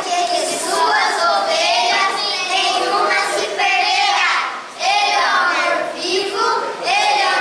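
A group of children singing together, in phrases a second or so long with short breaks between them.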